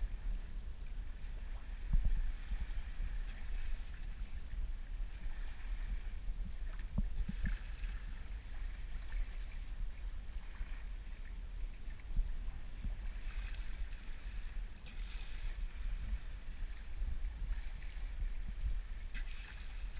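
Water rushing and splashing along a sailboat's hull as it moves through the sea, in washes that swell and fade, with wind buffeting the microphone as a low rumble.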